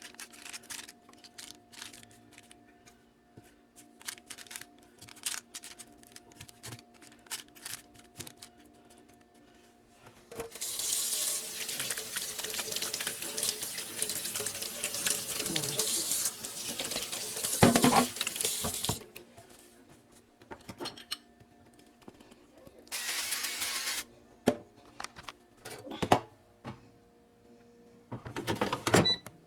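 Kitchen tap running into the sink for about eight seconds, with two shorter bursts of running water near the end. Light clinks and knocks of kitchen handling come before it.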